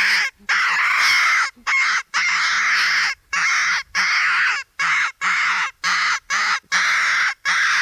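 Primos Third Degree mouth-blown predator call imitating a rabbit in distress: a run of about a dozen loud, raspy squeals, some about a second long and others short, broken by brief gaps.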